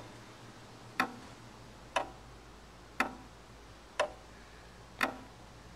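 A clock ticking, one sharp tick each second with a brief ring after each.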